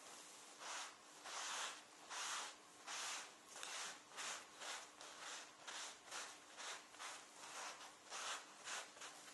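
A cloth damp with alcohol cleaner rubbed back and forth over a leather jacket sleeve, a run of soft swishing strokes that quicken to about two a second. The wipe cleans grease and dirt off the leather to prep it for colour.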